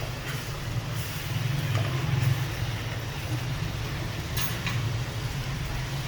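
A steady low drone with an even hiss over it and a few faint ticks.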